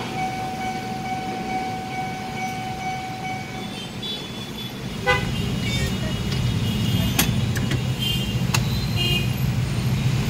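A level crossing's steady warning tone sounds and stops about four seconds in. Then the low rumble of motorbike and car engines grows louder as waiting traffic pulls away over the crossing, with short horn toots.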